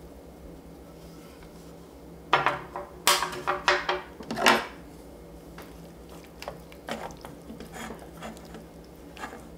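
Eating utensils clinking and clattering against dishes: a quick run of sharp clatters a couple of seconds in, the loudest about four and a half seconds in, then lighter, scattered clicks.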